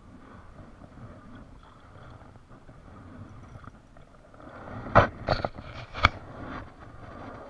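Gear being handled on a plastic fishing kayak: a few sharp knocks and scrapes about five to six seconds in, the loudest three close together, over a low, steady background of water and wind.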